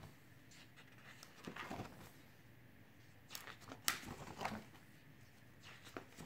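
Stiff photobook pages turned by hand in a ring binder: soft paper rustles and flaps, with a few sharp page snaps, the loudest a little under four seconds in.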